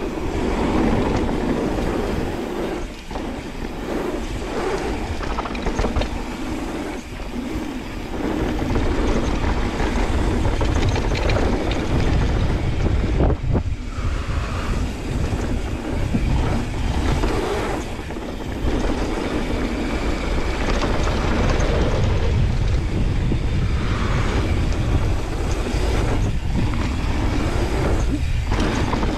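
Mountain bike descending a dirt trail: a constant low rumble of wind buffeting the microphone over tyre noise on the dirt, with scattered knocks and rattles from the bike over bumps.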